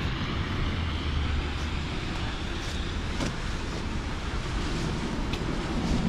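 Steady street traffic noise: cars running on a wet, slushy road, with a continuous low rumble.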